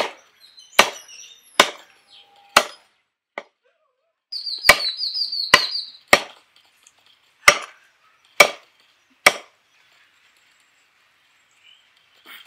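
Heavy steel cleaver chopping raw chicken on a wooden log chopping block: about ten sharp chops, roughly one a second, that stop after about nine seconds.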